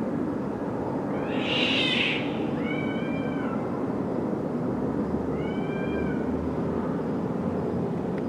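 A cat meowing three times, the first call the loudest, over a steady low rumble.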